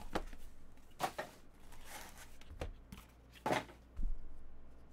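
A small cardboard trading-card box being handled and opened, a card lifted out of its foam insert: a few short rustles and scrapes of card stock, with a soft thump about four seconds in as something is set down.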